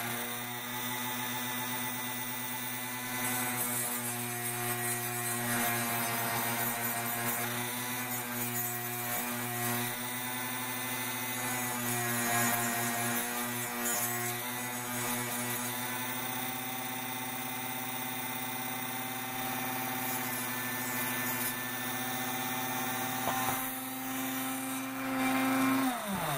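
Dremel rotary tool with a sandpaper wheel running, sanding excess hardened JB Weld epoxy from the inner edges of a plastic puzzle piece: a steady motor whine with rubbing from the wheel on the work. Near the end the motor is switched off and winds down.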